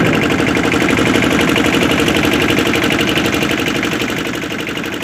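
A boat engine running steadily with a rapid, even chugging beat, fading out near the end.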